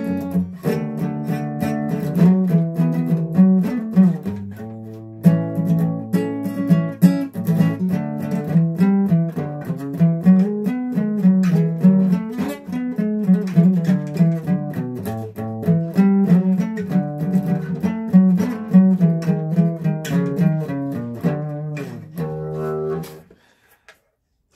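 Acoustic guitar being played, a busy run of picked notes over low bass strings. The playing stops abruptly near the end.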